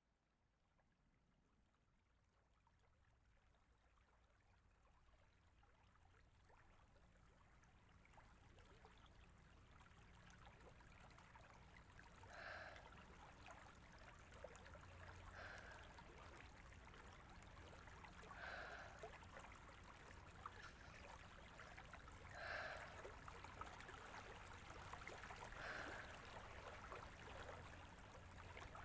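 A soft, steady rush of water fades in slowly from near silence. From about halfway, a woman's breathy gasps come roughly every three seconds.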